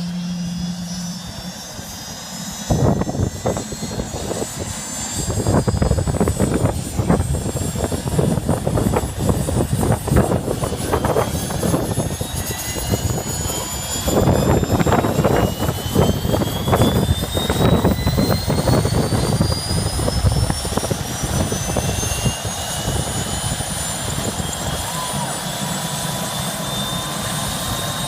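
Helicopter running in flight, its turbine whine slowly rising in pitch, with heavy, uneven rotor chop and rumble from about three seconds in that eases off near the end.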